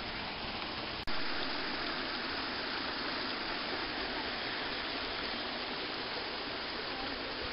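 Mountain stream rushing and cascading over rocks at the top of a waterfall, a steady rush of water. About a second in the sound breaks off for an instant, then comes back a little louder.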